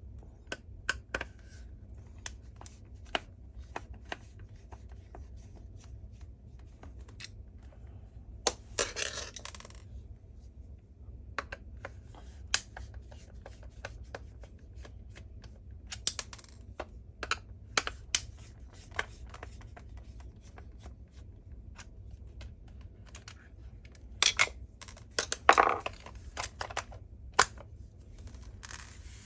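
Scattered clicks and taps of a screwdriver and hard plastic parts being handled while the screws of a cordless vacuum's roller-head housing are taken out, with two short scraping rasps, one about nine seconds in and one near the end. A steady low hum runs underneath.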